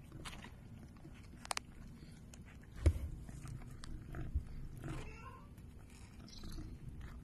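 Mother cat licking and cleaning a newborn kitten, with wet licking and chewing noises. A sharp knock comes about three seconds in, and a faint short mew about five seconds in.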